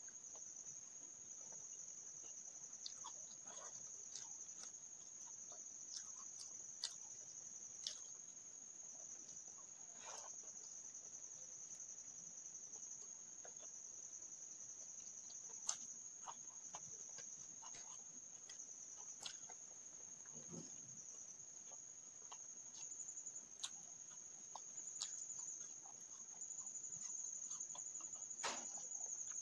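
A steady high-pitched insect trill, typical of crickets, runs throughout. Over it come scattered soft clicks and smacks of close-up eating: chewing, and fingers mixing rice on a plate.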